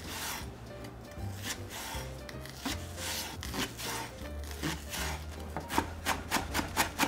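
Kitchen knife cutting long green onion on a wooden cutting board: irregular strokes at first, then quick, even chopping at about four strikes a second starting about six seconds in. Background music with a steady low bass underneath.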